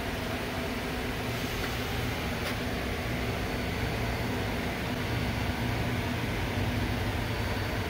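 Steady machine hum with low drone tones from a powered-up Yang SMV-1000 CNC vertical machining center idling, with a faint click about two and a half seconds in.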